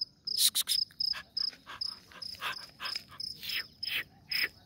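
Cricket chirping steadily: short, evenly spaced high chirps, about four a second. Over it comes a run of louder, short rough noises, the loudest about half a second in.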